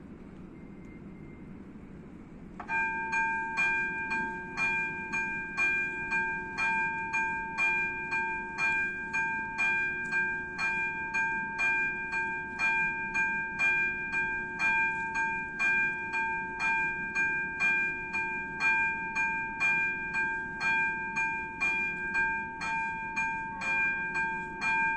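Electronic level-crossing bell starting about three seconds in and ringing in an even, rapid series of dings. It is the crossing's warning coming on for an approaching train.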